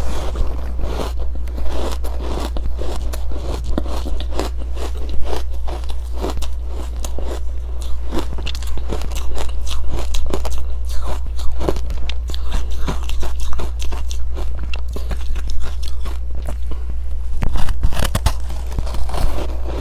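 Biting and chewing powdery freezer-frost ice dusted with matcha powder: a continuous run of dense crunches, over a steady low hum.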